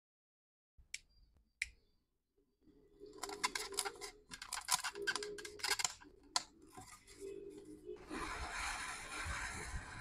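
Small plastic rocker switch being pressed and worked into a hole in polystyrene foam, the foam squeaking and crackling in quick bursts, after a couple of light clicks. About eight seconds in, a heat gun starts blowing with a steady rush.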